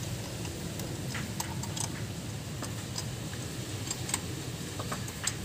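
Scattered light clicks and taps, irregular and a dozen or so, as spark plug wires and their rubber boots are handled and pushed onto the new platinum spark plugs of a Toyota 7K engine. A low steady hum runs underneath.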